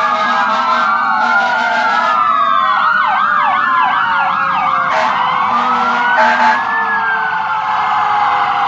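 Several fire apparatus and ambulance sirens sounding together as the vehicles pass, their wails overlapping, with a fast yelp about three seconds in and a long falling wail near the end. Short horn blasts cut through a few times.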